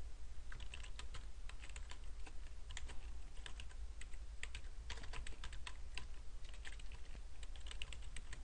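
Typing on a computer keyboard: an uneven run of quick key clicks, starting about half a second in, as a sentence is typed out.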